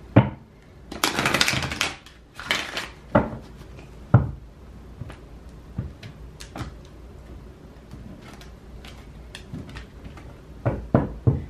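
A deck of oracle cards shuffled by hand: two quick rustling bursts of cards running together in the first few seconds. Then sharp taps and clicks as a card is laid down and the deck is squared and set on the table, with a few louder taps near the end.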